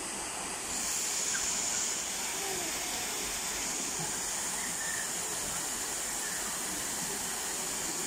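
Small waterfall pouring into a rock pool: a steady rush of falling water.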